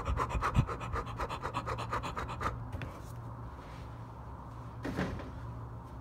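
Quick, even scratching strokes, about seven a second, that stop about two and a half seconds in, over a steady low hum; a single short sound comes near the end.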